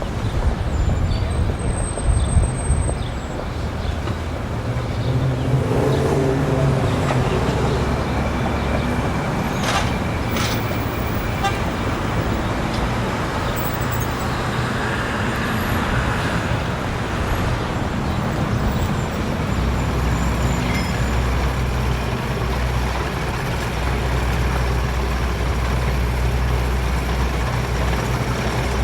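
Steady engine rumble of motor vehicles, with a continuous low hum and noise throughout.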